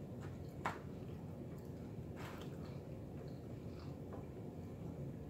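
A man chewing pepperoni pizza, faint mouth smacks with a couple of soft clicks.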